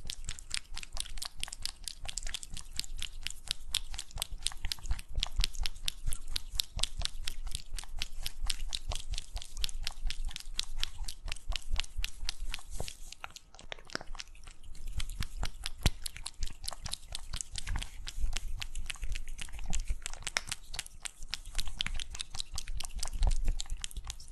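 Kitten licking and eating a lickable cat treat from a squeeze tube, picked up close to a microphone: a fast, unbroken run of licking and smacking clicks, many a second.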